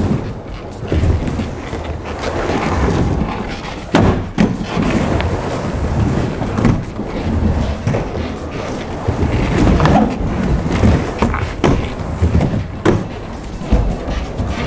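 Surfskate wheels rolling and carving across a skate bowl: a low rolling rumble that swells and fades with each turn, broken by several sharp clacks and thuds of the board, two close together about four seconds in and more later on.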